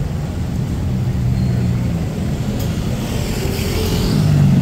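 Street traffic: a motor vehicle's engine running close by, getting louder toward the end as it draws near.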